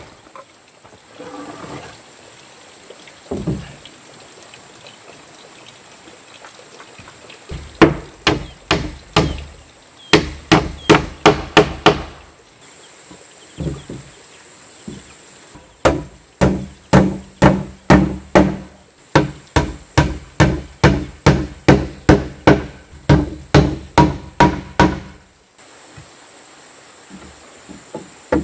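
A hammer nailing rough-sawn wooden planks: two runs of quick, evenly spaced strikes, about three a second, the first about a quarter of the way in and a longer one from just past halfway until near the end, with a few single knocks in between.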